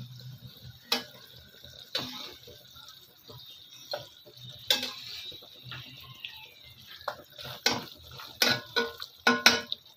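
Metal tongs clicking against a steel saucepan while jalebis fry in hot oil, over a faint sizzle. The clicks come about once a second at first, then faster and louder over the last three seconds.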